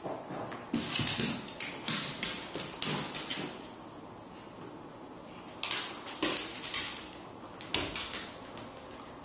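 Dogs' claws scrabbling and paws knocking on a hardwood floor during rough play, in three bursts of quick scratches and thumps.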